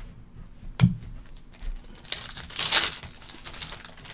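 A trading-card pack's wrapper being torn open and crinkled, with a sharp tap a little under a second in and the main tearing rustle about two seconds in.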